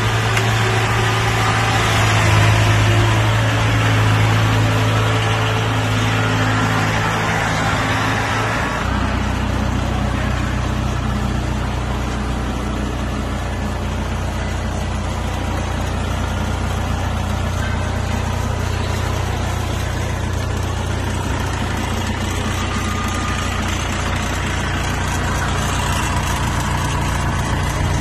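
Kubota DC-70G crawler combine harvester's diesel engine running steadily. About nine seconds in the sound settles from a louder, noisier run to a lower, steadier hum.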